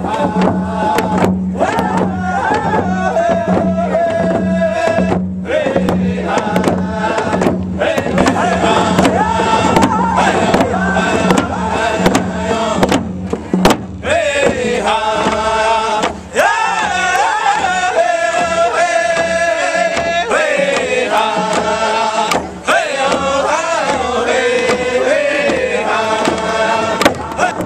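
A round dance song: a group of men singing together in a chanting style, with long held and wavering notes, over hand drums struck in a steady beat.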